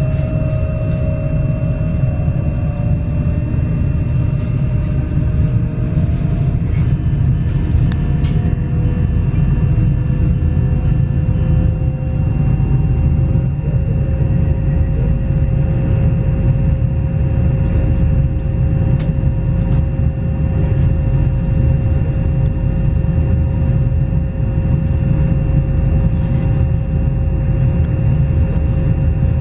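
Inside a stationary Pesa Dart ED161 electric multiple unit: a steady low hum from its running onboard electrical equipment, with steady whining tones from the inverters. One whine slides slightly down in pitch over the first dozen seconds.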